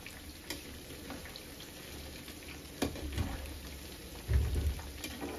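Chicken pakoras deep-frying in hot oil with a steady sizzle, while a spatula turns them over and clicks a few times against the pan. A dull low bump is the loudest sound, a little after four seconds in.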